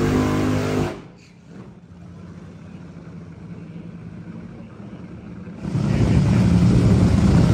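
Engine noise at a drag strip. A steady engine hum plays for about a second, then cuts to a quieter background rumble. Near the end a loud, low engine rumble begins suddenly.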